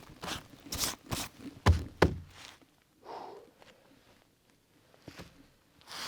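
Footsteps, a step about every half second, with two heavier thuds about two seconds in, then fading to quiet apart from one more step later on.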